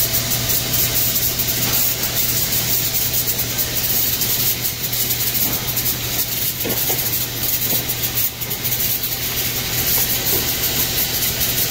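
Blueberry packing-line machinery running steadily: a low motor hum under a constant hiss.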